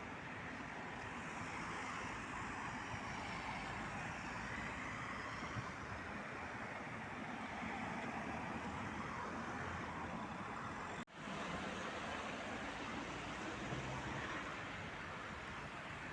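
Steady road-traffic noise recorded through a Redmi 9C phone's microphone, with a brief dropout about eleven seconds in where the clip cuts.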